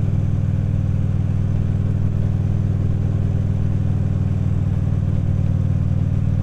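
Harley-Davidson V-twin motorcycle engine running at a steady cruise: a low, even drone with no shifts or revving.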